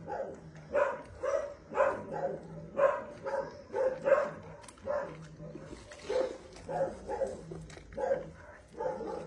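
Dogs barking over and over, about one to two barks a second.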